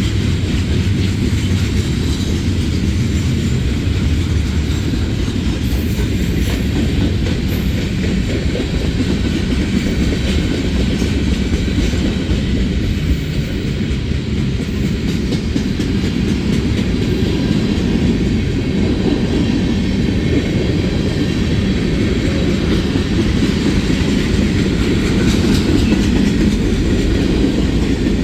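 Freight train cars rolling past, a steady loud rumble with wheels clicking over the rail joints.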